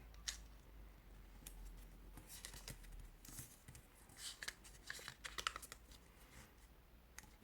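Faint rustling and crinkling of square coloured origami paper being folded and pressed into creases, in short scattered rustles.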